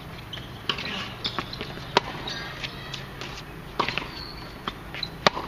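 Tennis rally on a hard court: rackets striking the ball and the ball bouncing, a sharp pock every second or two, the sharpest about two seconds in and near the end. Short high squeaks come between the hits.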